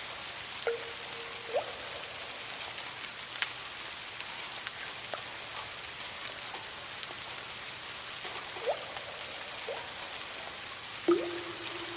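Soft, steady rain with separate drips of water falling through it; several louder drips land with a short ringing plink, the loudest about a second before the end.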